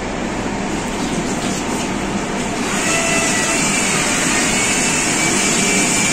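Tools of a split air-conditioner installation running with a steady mechanical noise; about three seconds in it grows louder as a hiss with a faint whistle joins in.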